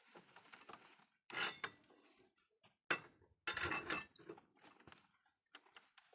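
Metal clanks and scraping from working a hand-operated cold-forging bending machine and its steel bar stock: two longer scraping bursts with a sharp knock between them, and lighter clinks around them.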